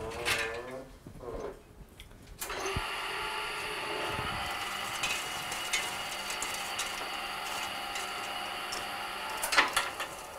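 Motorised 35mm film rewinder spinning a reel of film: about two and a half seconds in a motor starts with a steady whine and runs for about seven seconds, then stops with a few clicks.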